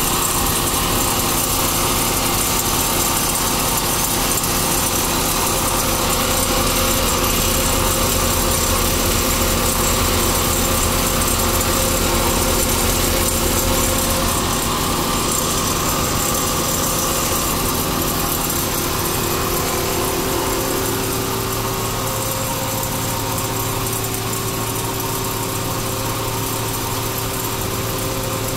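Motor-driven vermicelli-making machinery running: a steady mechanical hum with a constant drone. The hum changes pitch and drops slightly in level about 21 seconds in.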